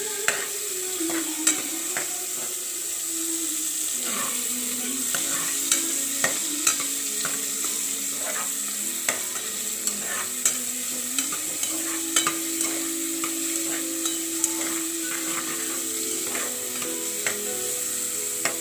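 Onions and tomatoes sizzling in hot oil in an aluminium pot, stirred with a metal ladle that clicks and scrapes against the pot every second or so.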